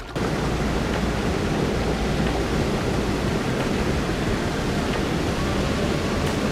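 Small river waterfall rushing close by: a loud, steady, unbroken rush of falling water.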